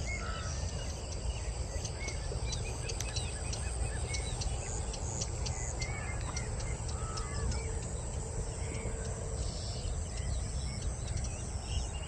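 Outdoor bird ambience: many small birds chirping and calling, with short high chirps scattered throughout, over a steady low rumble.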